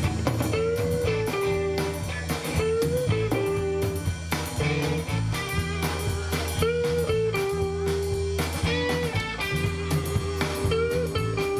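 Live rock band playing a blues-rock number: an electric guitar leads with held notes that bend up in pitch, over bass guitar and a drum kit.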